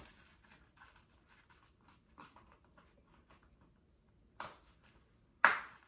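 Faint rustling and small clicks of a replica championship belt being handled around the waist, then two sharp clicks, the second and louder one just before the end, as its metal snaps are pressed shut.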